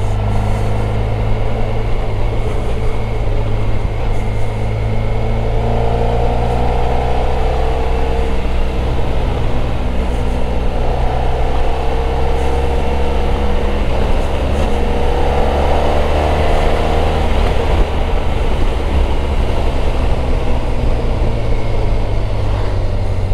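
Motorcycle engine running while riding, with a steady low rumble; its pitch rises three times, about six, eleven and fifteen seconds in.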